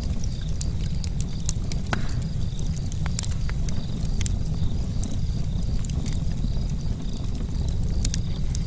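Charcoal campfire crackling, with irregular sharp pops and ticks over a steady low rumble.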